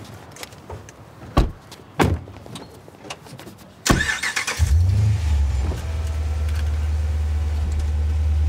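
Car doors shutting with two sharp thumps, then a car engine cranked and started about four seconds in, settling into a steady low idle.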